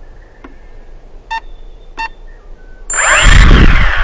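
Two short electronic beeps from the toy quadcopter drone. About three seconds in, its motors start up with a sudden loud whirring rush of propeller noise, shifting in pitch, with low buffeting on the microphone.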